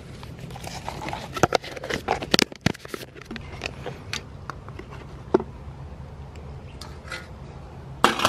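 Handling noises from a small plastic geocache container: scattered clicks, scrapes and crackles, busiest in the first three seconds. Near the end comes a sharp, louder knock from the rusty metal lid of an old milk can.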